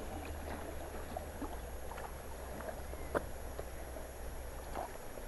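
Water lapping and splashing against an inflatable raft on a river, with scattered small splashes and a sharper knock about three seconds in, over a low steady rumble.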